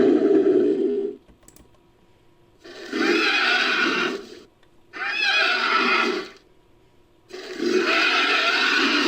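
Designed dinosaur creature calls for a Skorpiovenator: a call ending about a second in, then after a pause three more long calls, the second of them wavering in pitch and the last running on past the end.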